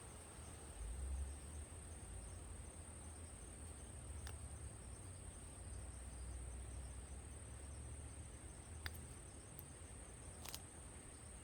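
Wood fire crackling faintly, with a few isolated sharp pops, over a steady high thin whine and a low rumble.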